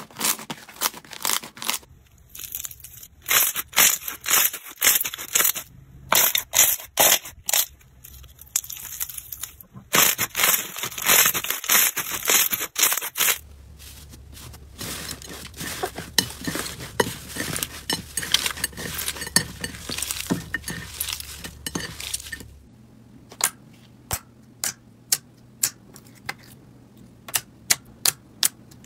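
Slime kneaded and pressed by hand: dense crackling and popping clicks, changing in texture from clip to clip, then thinning near the end to sparse, sharp single pops as clear slime is pressed.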